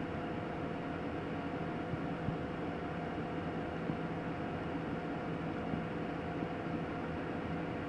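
Steady engine hum with an even hiss, unchanging throughout.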